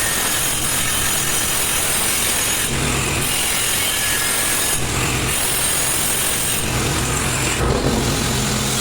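Continuous machine or power-tool noise at a steady, even level, with a deeper rumble joining in briefly a few times.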